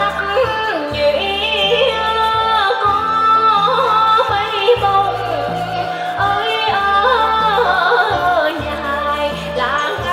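Vietnamese folk song: a singer's voice with sliding, bending notes over a traditional instrumental ensemble holding low sustained bass notes.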